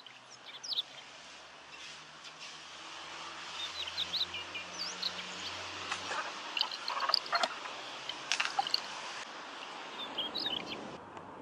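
Small birds chirping and twittering in short, quick calls, with a faint low hum underneath in the first half.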